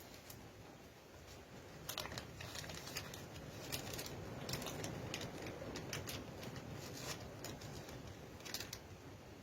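Hands rummaging through a pack of 16-gauge finish-nail strips: irregular light clicks and rustling as the strips and their packaging are handled.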